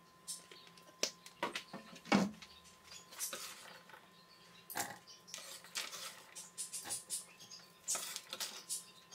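Diced potato, carrot and onion tipped into a stainless steel pot with oil, landing as a run of irregular light clicks and taps, with one louder knock about two seconds in.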